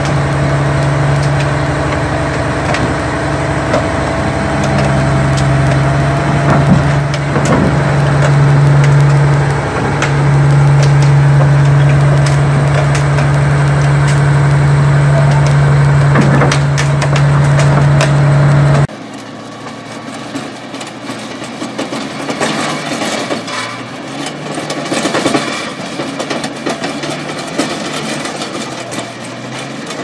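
Komatsu D475A-5 crawler dozer's diesel engine running with a steady low drone, with sharp metal clanks and creaks from the machine. About two-thirds of the way in the drone cuts off abruptly, giving way to quieter, irregular clattering of a dozer working rock.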